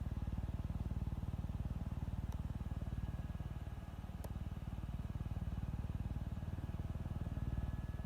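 Helicopter running steadily, its rotor and engine making a fast, even low pulsing.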